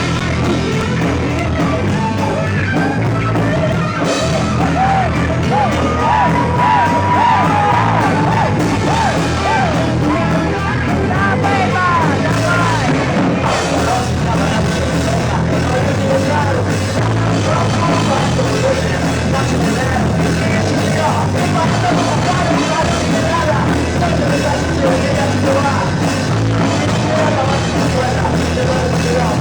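Loud live rock band playing amplified guitars, bass and drums, with a lead line of bending, gliding notes in the first part.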